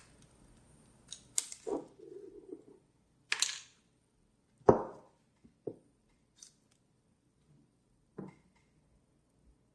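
Small metal lighter parts and tools being handled: scattered clicks and light taps, a brief scrape about three seconds in, and one sharper knock just under five seconds in.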